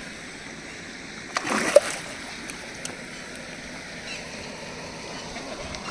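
A hooked snakehead fish splashes once at the water's surface about a second and a half in, a brief splash of about half a second.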